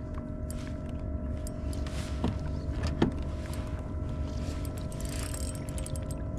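Fishing reel drag clicking irregularly as a hooked fish pulls line off the spool, over a steady mechanical hum.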